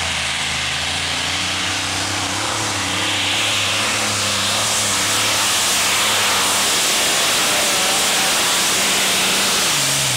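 Multi-engine modified pulling tractor running flat out under load as it drags the weight sled: a loud, steady engine noise with a heavy hiss, swelling a little about three seconds in.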